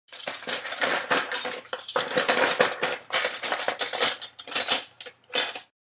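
Metal silverware clattering and clinking together in a dense run of sharp clinks. It ends with a short pause and a last brief clatter.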